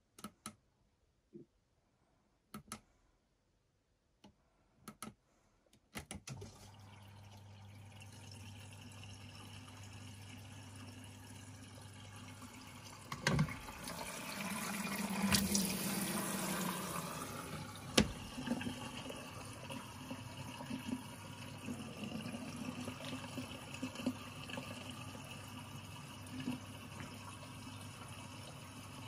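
A few separate clicks, then a washing machine's water inlet valve opens with a steady low hum and water rushes in through the detergent drawer to fill the drum, growing louder after a few seconds. There are a couple of sharp knocks partway through.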